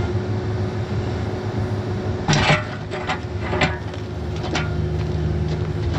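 An engine of heavy equipment running steadily, with a loud scraping knock about two and a half seconds in and a few lighter knocks after it.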